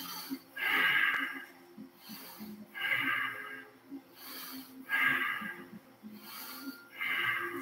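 A man breathing heavily while holding a prone back-extension pose: four loud, airy exhales about two seconds apart, with softer inhales between them.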